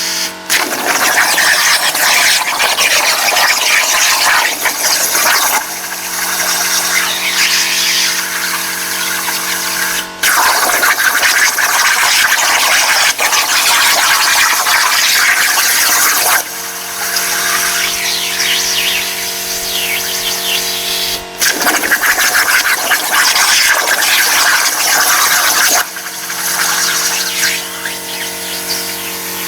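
CNC plasma cutter cutting steel: the plasma arc hisses and crackles loudly in three cuts of about five to six seconds each, starting about half a second in, about ten seconds in and about twenty-one seconds in. Between the cuts a steady machine hum takes over.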